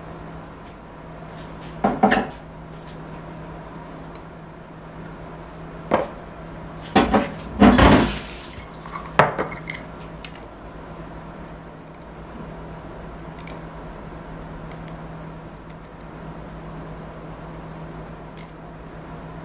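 Crockery and a glass jar handled on a kitchen counter: a few sharp clinks and knocks, one about two seconds in and a cluster between six and ten seconds, then only faint light ticks as capers are spooned out, over a steady low hum.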